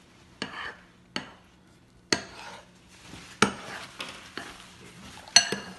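A metal spoon stirring in a bowl, clinking and scraping against its side: about six sharp, irregular clinks, the loudest near the end, as shaving cream is mixed into glue for slime.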